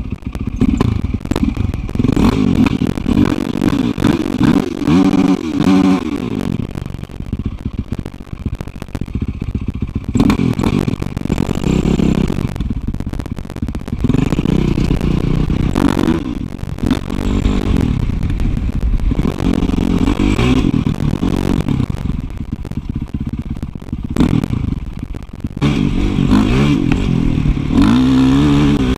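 Dirt bike engine running and revving up and down again and again as the bike is ridden, heard close up from a camera mounted on the bike.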